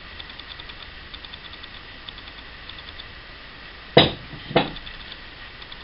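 Two knocks about half a second apart, some four seconds in: a glass measuring jug set down on the kitchen worktop. Faint soft ticking runs underneath.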